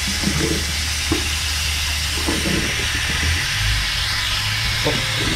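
Tap water running steadily from a barber's shampoo-sink hose into a ceramic basin, an even hiss, with a couple of faint clicks.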